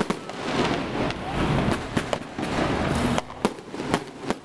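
Fireworks going off: a run of irregular sharp bangs, about a dozen, over a continuous rush of noise.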